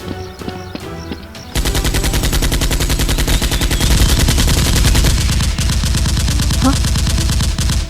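Background music, then about a second and a half in, sudden, loud, continuous rapid automatic gunfire, a machine-gun sound effect laid over the music.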